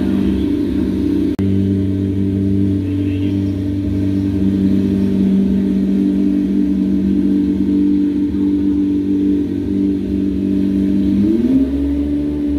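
Chevrolet C8 Corvette Stingray's 6.2-litre LT2 V8 idling steadily, with a brief break about a second and a half in. Near the end the idle rises a little and holds at the higher speed.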